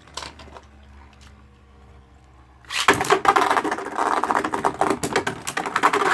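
Beyblade Burst tops spinning and clashing in a plastic stadium: a loud, dense rattle of rapid clicks and hits starts about three seconds in and keeps going.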